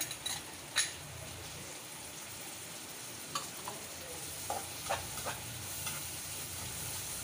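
Sliced onions with half-boiled carrots, beans and green chillies sizzling steadily in hot oil in a kadai, with a few short clicks as a spatula stirs and scrapes the pan.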